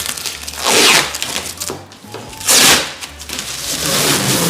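Protective plastic film rustling and swishing as it is pulled off a washing machine, with two louder swishes about a second in and again near the middle.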